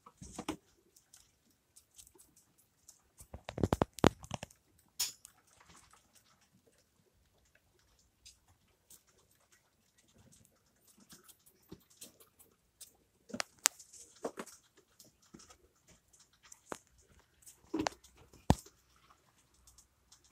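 Scattered light clicks, scratches and knocks of young rat pups scrambling over a plastic cage shelf and wire bars. The loudest clusters come about four seconds in, around fourteen seconds and near eighteen seconds.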